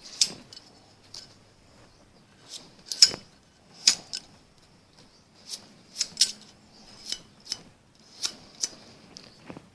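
Small metal engine parts, the bearing shells of a Ford flathead V8, being handled and set in place: about fifteen sharp, irregular metallic clicks and taps.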